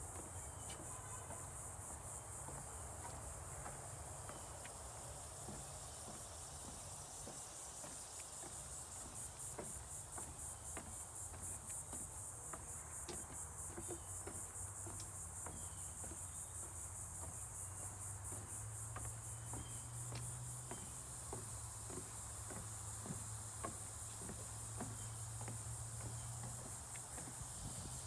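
A steady, high-pitched, finely pulsing chorus of insects in daytime wetland forest, with faint knocks of footsteps on wooden boardwalk planks and a low hum underneath.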